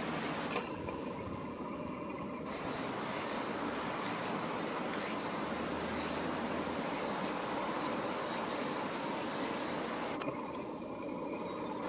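Outdoor ambience: a steady high-pitched insect call held throughout, over an even background rush.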